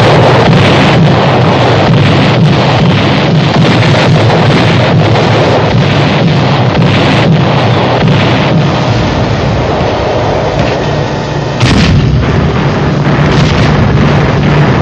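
Heavy gunfire and shell bursts of a night-time bombardment: rapid shots and blasts crowding together over a steady low drone, with one sharper, louder blast about twelve seconds in.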